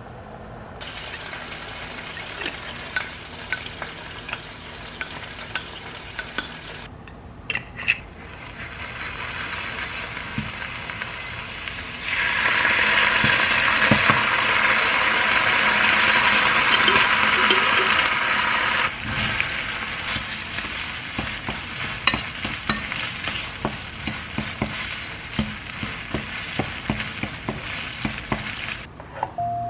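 Food sizzling in oil in a frying pan, with a wooden spatula stirring and scraping in small clicks. The sizzle is loudest in the middle, as rosé sauce goes onto minced garlic frying in the oil. Near the end comes the stirring of fusilli through the sauce.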